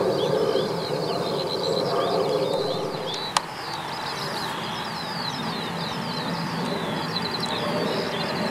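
Jet engines of a Condor Airbus A321 airliner running at a steady low rumble as it rolls along the runway, quieter after about three seconds. Many birds chirp over it in quick falling notes, and there is one sharp click about three seconds in.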